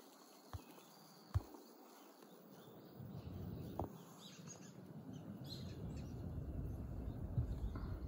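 Faint outdoor ambience: a low rumble that builds after about three seconds, a few sharp clicks, and faint distant bird chirps.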